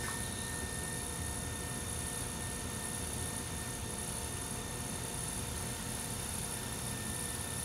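Brent electric potter's wheel running at steady speed while clay is being worked on it: a constant motor hum with several faint, steady high whines.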